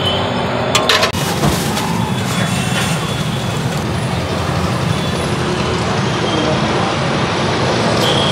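Steady roar of road traffic, with a few sharp clinks about a second in.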